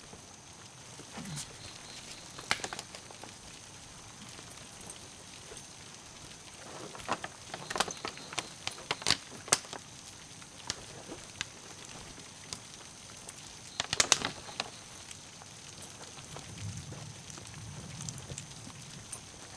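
Night ambience with a steady high-pitched insect chirring, and scattered sharp clicks and rustles of cloth and objects as a man handles and rummages in a cloth shoulder bag, with the sharpest clicks in clusters about a third of the way in and again past the middle.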